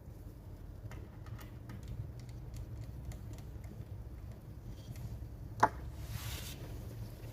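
Small clicks and taps from handling an opened laptop's internal parts, with one sharp click about five and a half seconds in, followed by a brief scrape.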